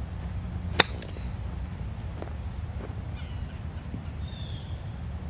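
Golf wedge striking a ball on a short pitch shot to the green: one crisp click about a second in, over a steady low rumble and a faint high steady hum.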